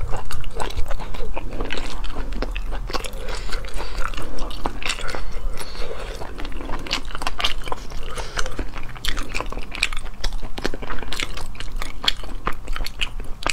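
Close-miked eating of spicy sea snails: chewing and biting with many small, irregular clicks and crunches as the shells are pulled apart and the meat is eaten.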